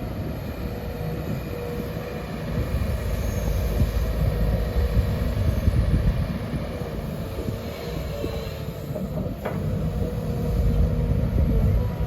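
Sumitomo SH210 hydraulic excavator working, a heavy diesel rumble with a thin whine that comes and goes. There is a sharp knock about nine and a half seconds in.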